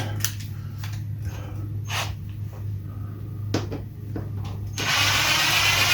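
A few light clicks and knocks over a low, steady hum, then a loud, steady hiss that starts near the end.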